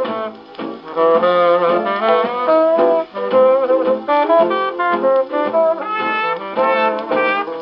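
A 1937 small swing band's 78 rpm shellac record playing on a wooden cabinet gramophone. Horns carry a jazz melody in an instrumental passage with no singing.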